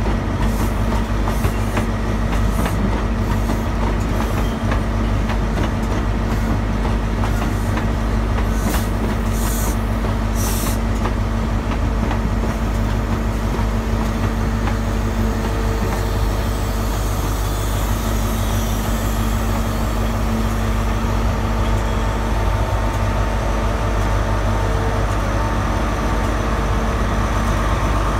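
Diesel train's engine running with a steady low hum and a steady pitch, with a run of sharp clicks over about the first ten seconds.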